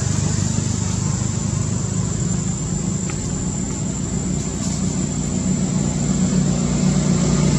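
Steady low rumble of a motor vehicle's engine running, with a thin, steady high-pitched whine above it.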